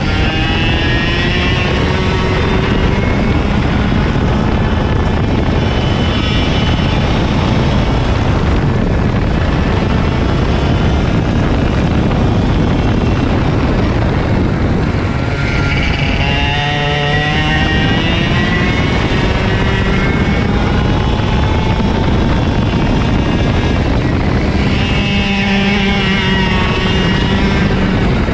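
A KA100 two-stroke kart engine at racing speed, its pitch climbing and falling through the laps. The pitch drops deeply and climbs back twice, about halfway through and again near the end, as the kart brakes for corners and accelerates out.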